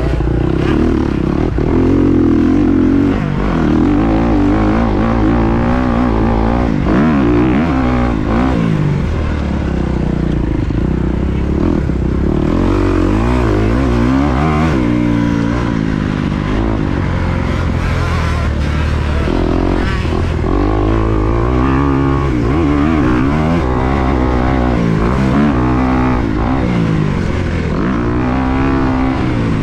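2023 Kawasaki KX250's four-stroke single-cylinder engine under hard riding, revving up and shutting off again and again, its pitch rising and falling every second or two.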